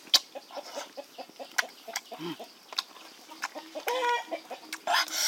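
A chicken clucking once, a short pitched call about four seconds in, among scattered small clicks and taps.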